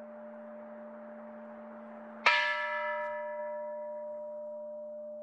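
A Buddhist temple bell struck once about two seconds in, ringing with many overtones that slowly fade. A steady ringing tone sounds under it throughout.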